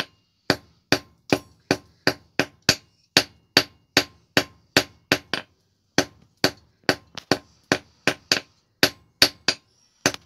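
Blacksmith's hand hammer striking iron on an anvil in a steady rhythm, about two or three ringing blows a second, with a brief pause about halfway through, as the iron is hammered into the shape of a trident.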